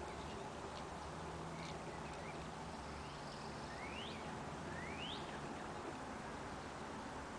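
Wild birds calling over a steady outdoor hiss: several short whistled notes that sweep upward, the clearest two about four and five seconds in.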